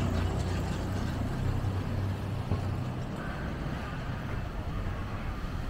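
City street traffic heard from a moving bicycle: a low motor-vehicle engine hum over steady road noise, the hum fading after about three seconds.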